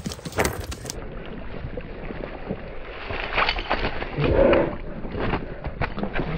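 A freshly landed snakehead (murrel) thrashing on dry grass: a run of rustles and slaps, busiest from about three seconds in.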